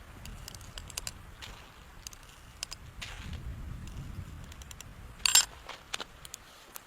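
Low wind rumble with scattered light taps and crackles, and one louder crackling rustle about five seconds in.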